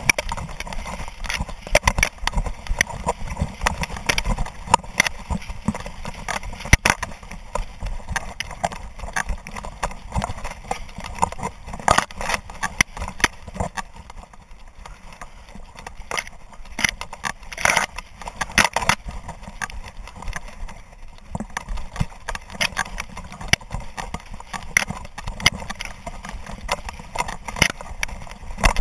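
Camera harnessed to a dog running through tall dry grass: stalks brushing and scraping against the camera, with many irregular knocks and thumps from the dog's stride jostling the mount, and a low rumble of handling noise.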